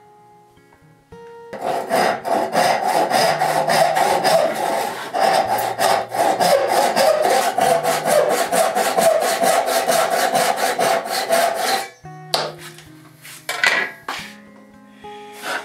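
Backsaw cutting into a hardwood block in quick, even strokes, about four a second, starting a second and a half in and stopping about twelve seconds in; a few scattered knocks follow. Soft background music plays underneath.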